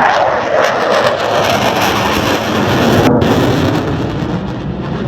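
A Eurofighter Typhoon's twin turbofan jet engines roaring loudly as the jet passes, the sound falling in pitch over about three seconds.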